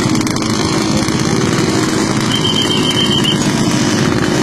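Motorcycle engines running steadily and loudly. About halfway through comes a quick run of high beeps lasting about a second.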